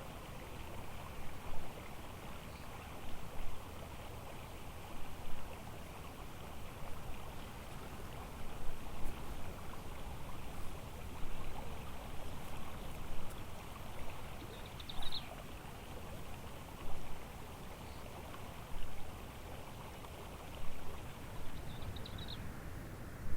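Flowing water, a steady rushing that swells every second or two. Two brief high chirps come through, about fifteen seconds in and near the end.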